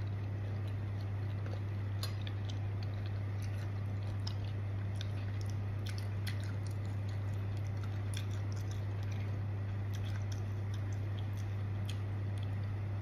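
Close-up chewing of a mouthful of pounded santol salad with fresh shrimp: wet mouth sounds and many small scattered clicks. A steady low hum runs under it all and is the loudest sound.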